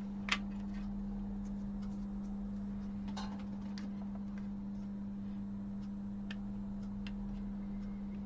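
A steady low hum with a few faint, scattered small clicks, the loudest just after the start: light handling of an opened plastic TV remote control and its parts.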